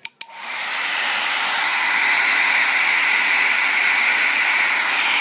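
A 1000-watt hair dryer is switched on with two quick clicks, then spins up over about a second into a steady blowing rush with a high whine.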